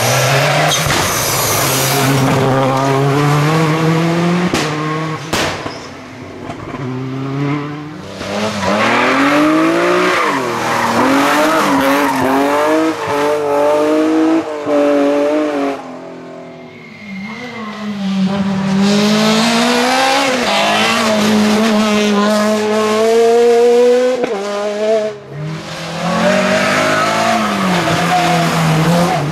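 Rally car engines at full race pace, revving up and dropping again and again through quick gear changes, with tyre squeal. The sound falls away briefly about seven and seventeen seconds in.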